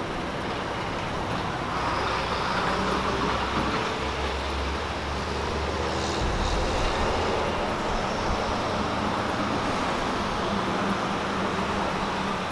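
Steady street traffic, with vehicles driving through the intersection and a deeper rumble for a couple of seconds near the middle as heavier traffic passes.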